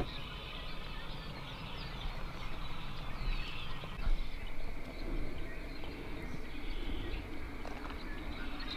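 A distant flock of ducks calling: many faint, overlapping calls, with a single knock about four seconds in.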